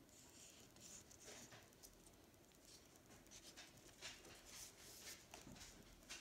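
Faint, soft rustling and light scraping of a Pokémon trading card being handled and slid into a card sleeve, with small scattered ticks.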